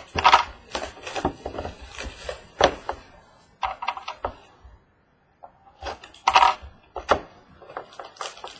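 Trading cards and card packaging being handled on a table: scattered rustles, taps and clicks. The sound cuts out completely for under a second about halfway through.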